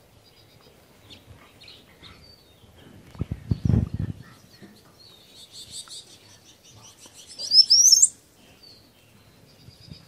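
A small songbird sings a rapid series of high notes from about five seconds in, ending in quick rising sweeps near eight seconds, the loudest part. A short cluster of low thumps comes a little past three seconds.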